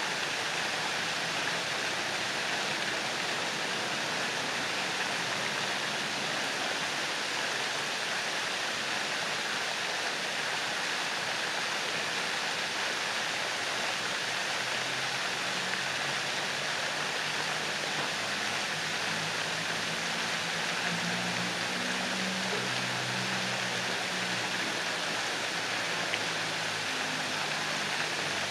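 Fountain jets spraying and splashing steadily into a pond, an even rushing of water. A faint low hum joins it from about halfway through.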